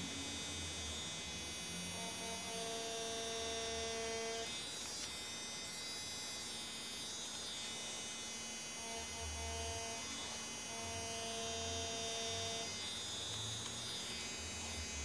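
DragonHawk Mast Archer wireless rotary tattoo machine running with a steady electric hum as the needle lines. A higher tone comes in and drops out again in stretches of a second or two.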